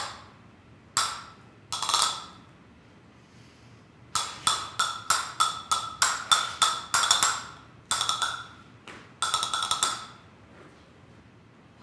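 Flamenco castanets played solo with no accompaniment. Two single clacks come about a second apart, then after a pause, from about four seconds in, quick rhythmic runs of clacks in short phrases.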